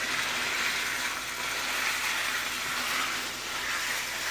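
Beef mince frying in oil with fried onions in a pan, a steady sizzle as it is browned (bhuna). A spatula stirs through it near the end.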